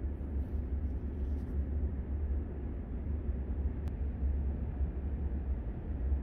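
Wind buffeting the microphone: an uneven low rumble with a faint hiss above it, and one faint tick about four seconds in.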